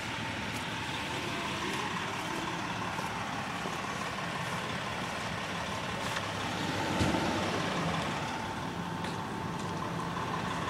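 Fire truck engine idling: a steady low hum with a faint steady whine above it, under a haze of outdoor noise. A single thump about seven seconds in.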